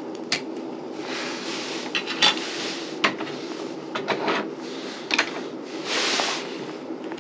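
Jars, lids and a coffee maker being handled on a camp table: scattered clicks and knocks, with a couple of short stretches of rubbing or scraping, over a steady low hum.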